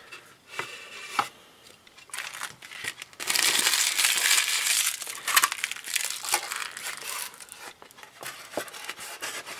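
Thin plastic film crinkling and crackling as it is handled and peeled, loudest for about two seconds in the middle, with light clicks and taps of plastic parts around it.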